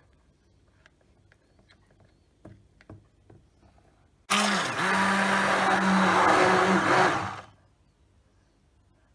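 Braun 450-watt immersion hand blender switched on in thick whipped cream, running with a steady motor hum for about three seconds before it stops, churning the cream toward butter. A couple of soft knocks come before it starts.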